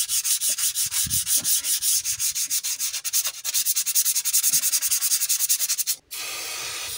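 An abrasive pad is scrubbing the metal rear face of an engine block around the crankshaft flange in quick, even back-and-forth strokes, clearing old RTV sealant. About six seconds in the scrubbing stops and an aerosol can of degreaser starts spraying with a steady hiss.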